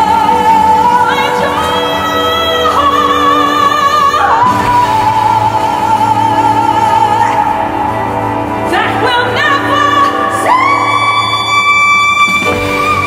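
A woman singing long, held notes with vibrato into a microphone, her pitch stepping up and down between phrases and reaching a high held note in the last few seconds, over steady, sustained instrumental accompaniment.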